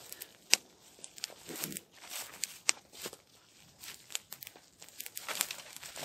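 Small fire of dry twigs and sticks crackling, with sharp irregular pops and snaps, the loudest about half a second in.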